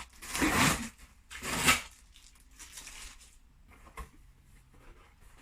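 Sellotape being ripped off a cardboard box: two loud tearing rips in the first two seconds, then quieter rustling of the cardboard and a single click about four seconds in.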